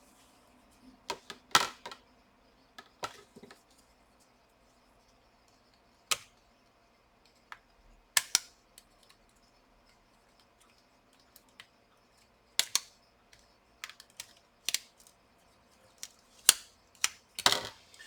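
Scattered sharp clicks and taps of a tool and small parts inside an open laptop as its battery connector is unplugged, irregularly spaced with quiet gaps between them.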